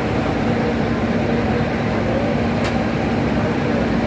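A steady engine running, a constant low hum under an even noisy rush.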